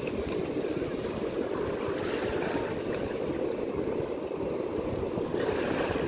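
Steady wash of small waves at the water's edge, with wind buffeting the microphone, and a brighter hiss of surf near the end.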